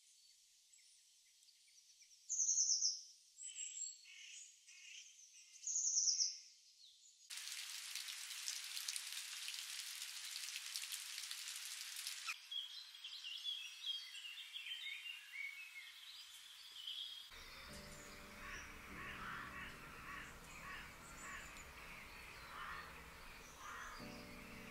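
Birds calling, with two louder short calls in the first few seconds, then the steady hiss of a fountain's spray falling into a pond for about five seconds, then more bird chirps. Soft lo-fi music comes in about two-thirds of the way through.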